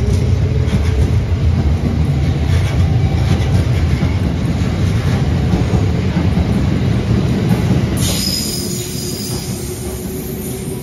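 Train running on the rails with a heavy, steady low rumble. About eight seconds in, a high hiss and a thin squeal join it as the rumble eases.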